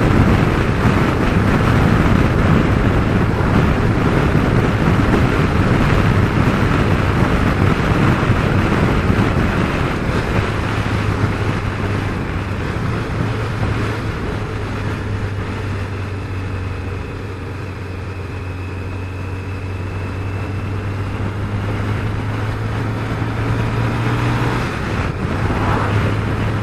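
Kawasaki Concours motorcycle's inline-four engine running at a steady highway cruise, a low even hum under heavy wind rush on the helmet-mounted microphone. The wind eases somewhat past the middle and then builds again.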